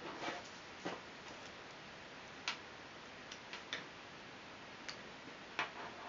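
Faint, scattered small clicks and taps of plastic strap buckle connectors being handled, at uneven intervals with the sharpest clicks about midway and near the end.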